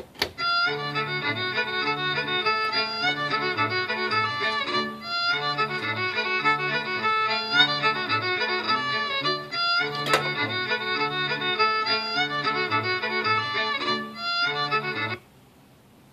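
A coin drops into the Chicken Machine coin-op with a sharp click. A lively fiddle tune then plays through the machine's speaker from its Raspberry Pi sound retrofit for about fifteen seconds, pausing briefly twice, with another sharp click about ten seconds in.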